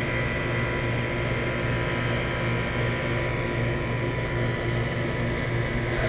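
2001 York 2.5-ton central air conditioner's outdoor condenser unit running with both its compressor and condenser fan on, a steady hum and whir. The compressor has come back on after a breaker reset, having stayed off after a brief power outage.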